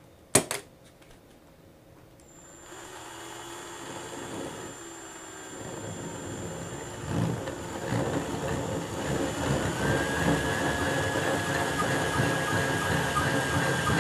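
Cordless drill with a diamond bit grinding into a stone countertop. The grinding starts about three seconds in and grows steadily louder, and a thin steady whine joins it near the end.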